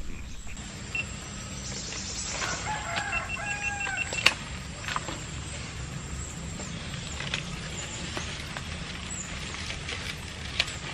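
A rooster crows once, about two seconds in, over a steady low background rumble. Sharp clicks and knocks are scattered through, the loudest a little after four seconds in.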